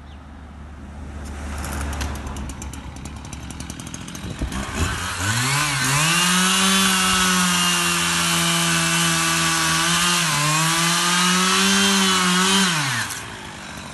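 Two-stroke chainsaw running low for a few seconds, then opened up to full throttle about five seconds in. It holds a high, steady whine for about seven seconds, dips briefly near the ten-second mark, and drops back off throttle near the end.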